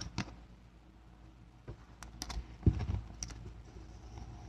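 Light clicks and taps of a trading card and a rigid plastic toploader being handled as the card is slid into the holder, with a soft thump about two and a half seconds in.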